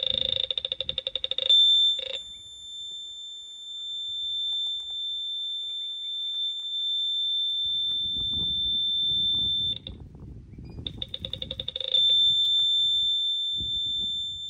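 Metal detector sounding off on a target: a steady high-pitched electronic tone, broken by a rapid pulsing buzz at the start and again about eleven seconds in, with a short gap just before the second buzz.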